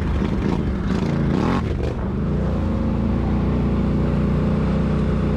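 Can-Am Outlander XMR ATV engine running while riding a trail. The engine note drops and climbs back between one and two seconds in, then holds steady.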